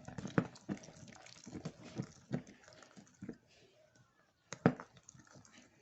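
Homemade glitter slime being squeezed and handled: irregular short squishes and clicks, with a louder one about four and a half seconds in.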